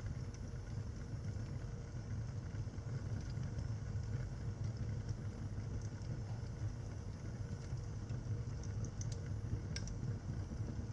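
Wood fire burning in a fireplace: a steady low rumble of the flames with scattered sharp crackles and pops, a few coming close together near the end.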